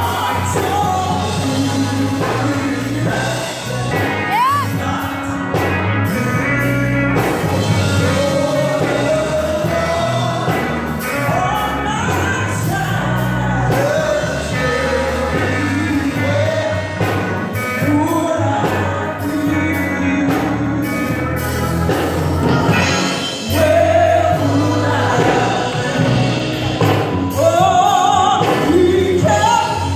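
A woman singing a gospel hymn into a microphone, her voice carried through a sound system with instrumental accompaniment underneath.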